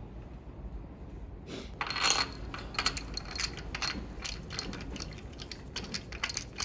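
A metal tool clinking and tapping against the crankshaft hub and front seal in a BMW M52 engine's timing cover. The irregular, ringing metallic clicks come a few times a second and start about one and a half seconds in.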